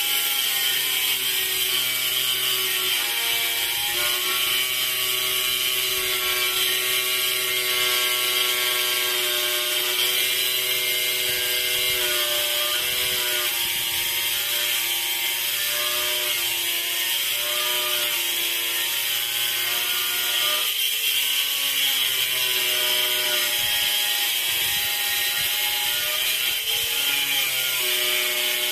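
A machine running continuously: a steady hiss with a wavering whine whose pitch dips and recovers now and then.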